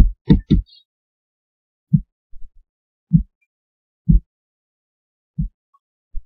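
Computer mouse clicks while window tags are being selected and deleted: a quick cluster of three at the start, then single short, dull clicks about a second apart.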